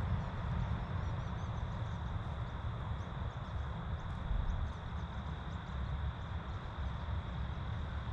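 Steady outdoor background noise, mostly a low rumble with an even hiss, and faint light ticks scattered through it.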